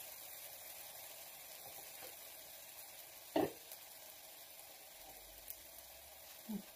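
Pancake cooking in a lightly oiled nonstick frying pan on a gas burner, giving a faint, steady sizzle. One short, louder sound comes about three and a half seconds in.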